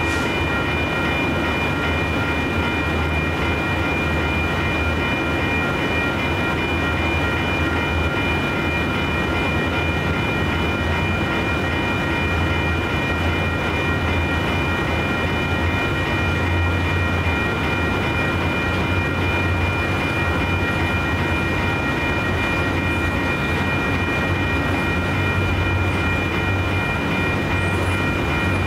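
Freight train of intermodal cars rolling through a grade crossing, with a steady low rumble and a continuous high-pitched ringing tone on top.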